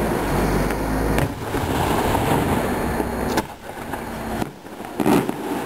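Fireworks display: aerial shells launched from ground mortars and bursting, with crackle and several sharp bangs, the loudest about five seconds in.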